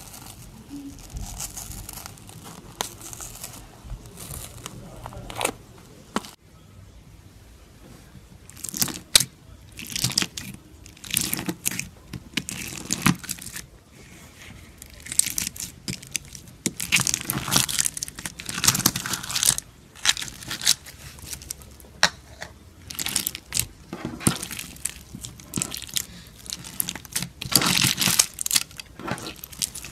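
Hands squishing slime: first fingers poking pink foamy slime, then clear slime packed with purple plastic beads being squeezed and pressed. Irregular crackling, crunching and popping, denser and louder in the second half.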